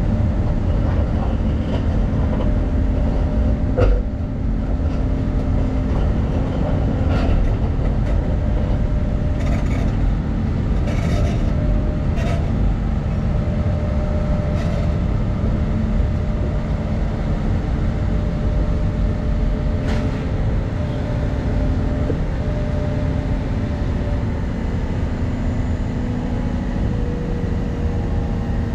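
CAT excavator's diesel engine and hydraulics running steadily under load, a low drone heard from inside the cab. A few short clicks and knocks sound over it now and then.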